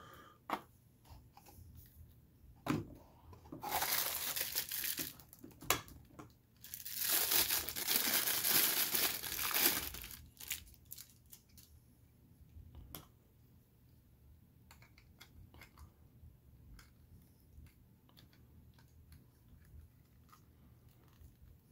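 A white wrap crinkling and tearing as an action figure's backpiece is pulled out of it, in two loud stretches, the second longer; after that only faint clicks and taps from handling the plastic figure.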